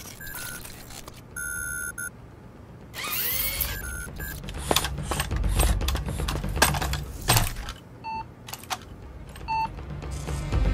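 Toy-like robot sound effects: short electronic beeps, a wavering electronic glide about three seconds in, then a run of sharp metallic clicks and clanks over a low rumble as the little robot moves, with more short beeps near the end.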